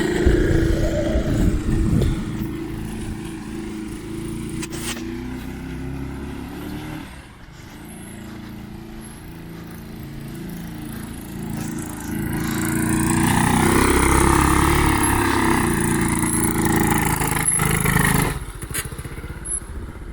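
Small petrol engine of a converted Power Wheels ride-on running and revving, the pitch stepping up and down. It fades about a third of the way in, picks up louder again past the middle, and cuts off suddenly near the end.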